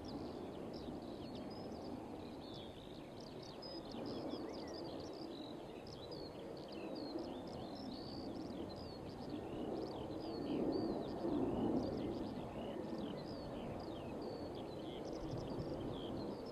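Many small birds chirping and singing in quick, overlapping short calls, over a steady low rumble that swells briefly about two-thirds of the way through.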